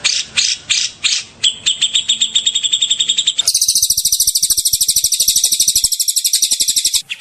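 Recorded songbird song for a bird-tutor (masteran) track: a few slurred whistled notes, then a fast even trill, then about halfway through an abrupt switch to a very high, dense rapid-fire trill of 'shot' notes, changing again abruptly near the end.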